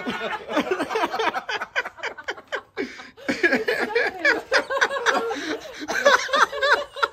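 A young child squealing and laughing with excitement: short, high-pitched cries and giggles in quick succession, with a brief pause about three seconds in.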